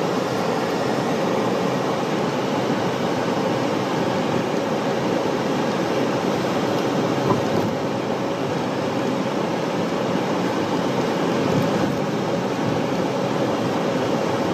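A car driving, with steady engine and road noise heard from inside the cabin.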